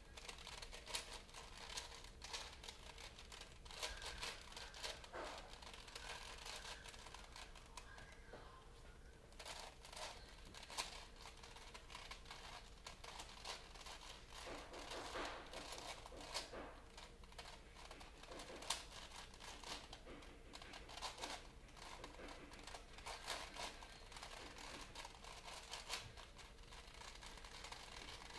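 Paper being folded and handled by hand: irregular soft crinkles and crackles, coming in clusters throughout.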